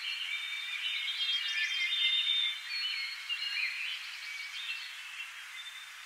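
Morning dawn chorus: several birds singing at once, overlapping chirps, whistles and quick trills over a faint background hiss, a little softer in the last couple of seconds.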